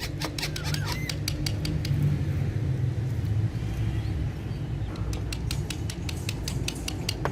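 Parrots nibbling and crunching food with their beaks: rapid, irregular sharp clicks in the first second and a half and again from about five seconds in, over a steady low rumble.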